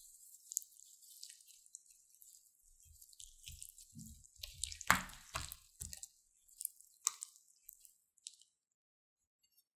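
Slime being squished and pressed, with many small wet clicks and pops and a few soft thumps; one sharper pop comes about five seconds in. It stops about eight and a half seconds in.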